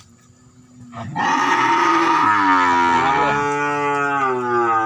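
Cattle mooing: one long, loud moo that starts about a second in and is still going at the end.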